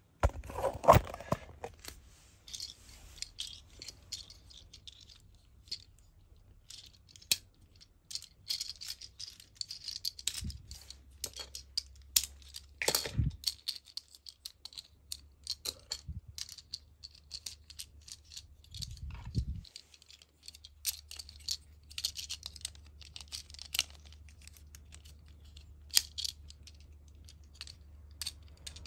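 Small plastic transforming ambulance toy being handled and folded, its hinged parts clicking, snapping and scraping in quick irregular bursts, with a couple of louder knocks about a second in and near the middle.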